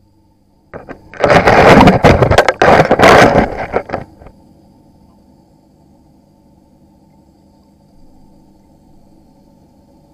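A loud, rough noise full of knocks and crackle for about three and a half seconds, then a steady low hum, typical of an aquarium's filter or air pump.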